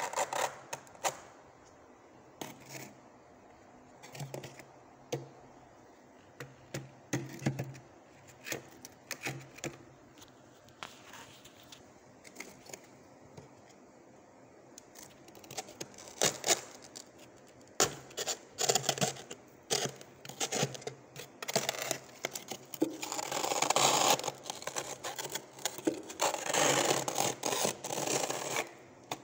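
Small plastic ice cream tub scraping thick frost inside a freezer. Short separate scrapes and knocks at first, then longer runs of steady, louder scraping in the last third.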